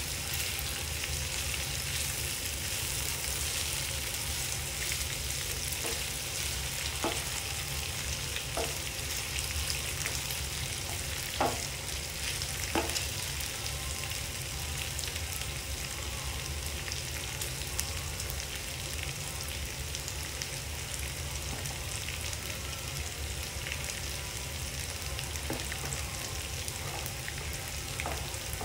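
Sliced pork belly, onion and carrot sizzling steadily in a nonstick frying pan as they are stir-fried. There are a few sharp clicks of the spatula against the pan in the first half.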